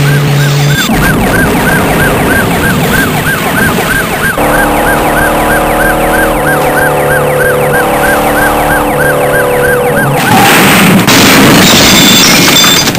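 Dubbed police siren sound effect, yelping quickly at about three rises a second, with steady held tones under it midway. Near the end it gives way to a loud burst of crash-like noise as a car is shown overturned.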